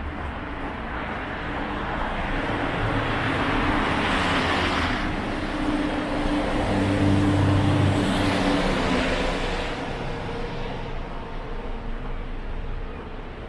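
Cars driving past on a city street: tyre noise and engine hum swell twice, about four and eight seconds in, over a steady traffic background.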